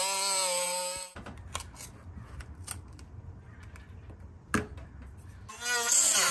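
Dremel rotary tool with a cutoff wheel whining steadily as it cuts a vent hole through the metal diamond-plate camper wall, then stopping sharply about a second in. Quieter handling follows, with scattered clicks and one sharp click. Near the end the Dremel starts again, its whine rising in pitch as it spins up and bites into the metal.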